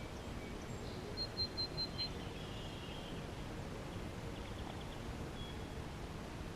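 A small bird calling: a quick run of about five short high notes about a second in, then a lower trill and a few faint chirps, over a steady outdoor background hiss.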